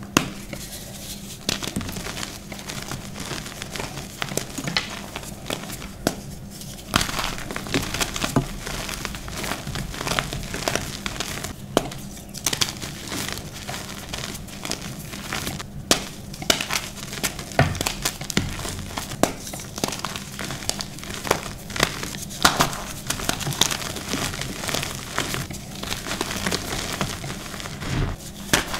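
Hands crushing and crumbling blocks and clumps of reformed, coloured gym chalk. Dense, dry crunching and crackling runs throughout, with frequent sharp cracks as pieces break apart.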